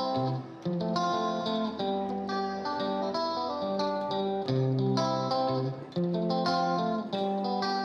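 Background music: a melody of plucked guitar notes over low bass notes.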